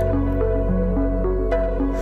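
Soft instrumental background music in a new-age style: a slow line of held notes stepping over a steady bass.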